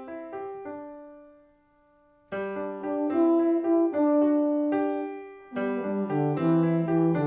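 Instrumental keyboard music with a piano sound: a melody over chords. A held chord fades away about a second and a half in, and the playing starts again, louder, a little after two seconds.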